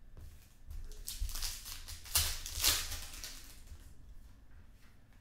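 Foil trading-card pack wrapper crinkling and tearing as it is opened, a few rustles with the loudest about two seconds in, then softer rustling of the cards being handled.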